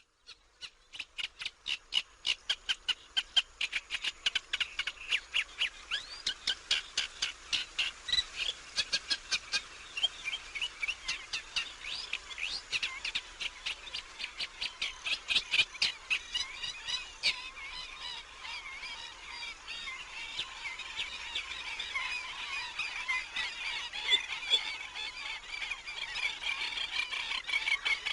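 Natural outdoor ambience of birds calling: a rapid run of short repeated calls, about four a second, that from about two-thirds of the way in gives way to a denser, overlapping chorus.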